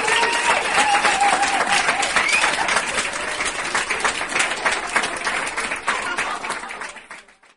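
Crowd of onlookers clapping and cheering, a few voices calling out over the applause in the first couple of seconds; the clapping fades away near the end.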